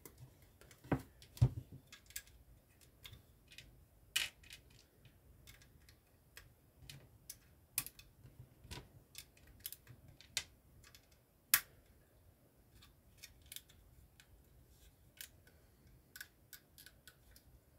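Plastic LEGO bricks clicking and rattling as they are handled and pressed onto a small model car, in irregular sharp clicks. A couple of louder knocks come about a second in.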